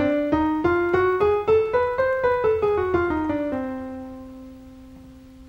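Piano sound on a digital keyboard playing a single-note scale, the diminished scale, up about an octave and back down at about four notes a second. It ends on a held low note that slowly fades.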